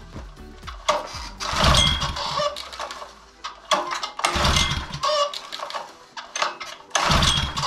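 Recoil starter of a plate compactor's Honda GX engine pulled three times, once every two and a half to three seconds, each pull a brief burst of the engine turning over without catching. The engine will not start; the plug showed no spark, which the owner puts down to a bad plug or some other cause.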